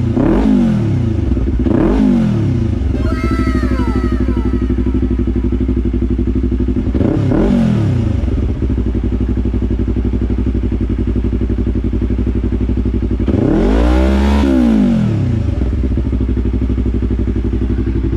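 Yamaha YZF-R3's parallel-twin engine running loud through a stainless Yoshimura R77 full exhaust, idling steadily between throttle blips. Several quick revs come in the first few seconds, another about seven seconds in, and a longer, bigger rev near the end.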